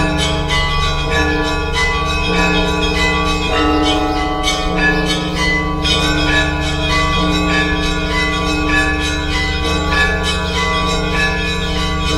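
Orthodox church bells pealing: many smaller bells struck in quick succession over the sustained hum of larger, deeper bells, at a steady volume throughout.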